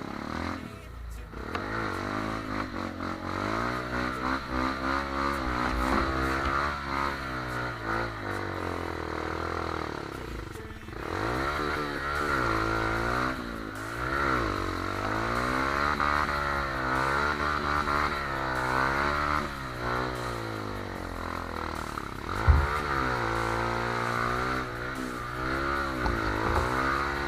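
Trail motorcycle engine revving up and down over and over, its pitch rising and falling every second or two, with a brief drop near the middle. A single sharp knock comes about two-thirds of the way through.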